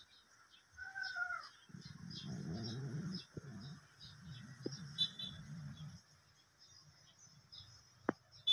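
Birds chirping repeatedly over a steady hiss. A short animal call comes about a second in, followed by a few seconds of low, rough animal sounds.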